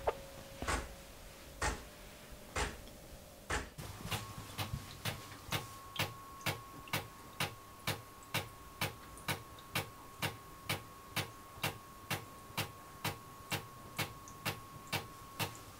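A De'Longhi La Specialista Arte Evo espresso machine brewing cold brew, its pump pulsing water through the coffee in a steady rhythm of clicks over a faint hum. The pulses come about once a second at first and quicken to about two a second a few seconds in.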